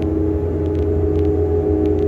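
Ship's deck crane machinery running with a steady, loud drone: a deep hum under two held higher tones, one of which drops out and comes back, and a few faint ticks.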